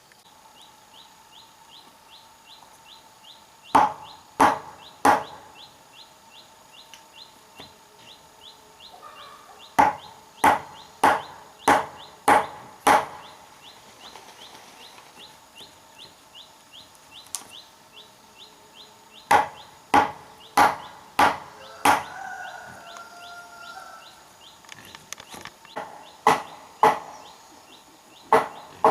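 A tool striking wood in bursts of three to six blows, about two-thirds of a second apart, as if chopping or shaping timber for a bed frame. A bird calls briefly between the bursts.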